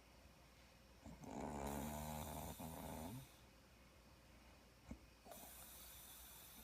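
A sleeping woman snoring: one long pitched snore of about two seconds starting about a second in, then quieter breathing with a single short click in between.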